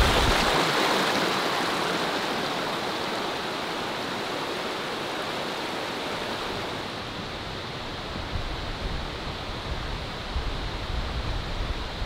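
Mountain valley stream rushing steadily, an even hiss of flowing water that eases off slightly over the first few seconds.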